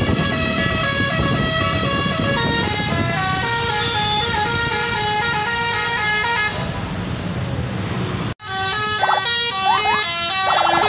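Bus telolet horn, a multi-tone air horn playing a quick stepping melody of changing notes over the rumble of the bus. It cuts out abruptly about eight seconds in, then the tune starts again.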